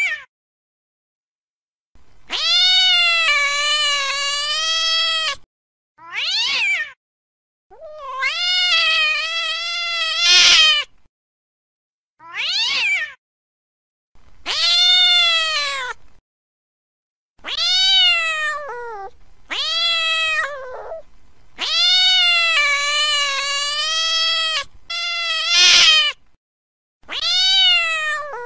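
Domestic cat caterwauling in a fight: about ten long, drawn-out yowls, each wavering up and down in pitch, separated by short silent gaps. Two of the yowls carry a brief harsh crackle.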